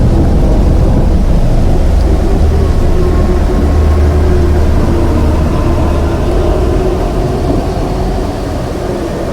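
Pachyrhinosaurus creature sound effect: a long, deep rumbling bellow with a faint wavering tone on top, easing off slightly near the end.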